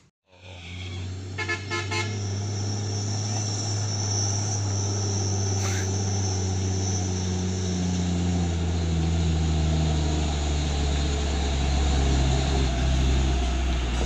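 Mitsubishi Fuso dump truck's diesel engine running as the truck comes closer, a steady low drone that grows slightly louder. A horn gives several quick toots about a second and a half in.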